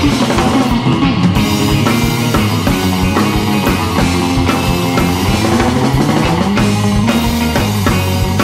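Rock music with a drum kit and guitar, with a steady beat.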